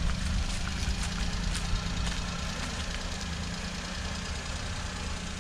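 Maruti Suzuki Alto 800's three-cylinder petrol engine idling, a steady hum over a low rumble.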